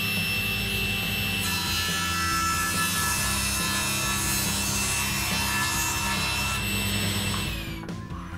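Table saw running with a steady whine while a long board is ripped on a taper jig; the blade cutting through the wood is heard for about five seconds in the middle. Near the end the saw is switched off and its pitch falls as it winds down.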